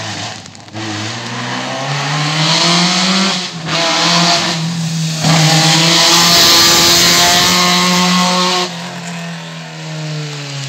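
A race car accelerates hard past the spectators on a wet road. The engine revs up, with short dips at the gear changes about three and a half and five seconds in, and is loudest as it passes. A hiss of tyres on wet tarmac runs under it, and near the end the engine note drops away and falls in pitch as the car moves off.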